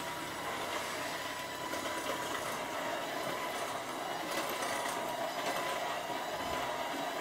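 Handheld electric mixer running steadily, its beaters whirring through chocolate cake batter in a glass bowl.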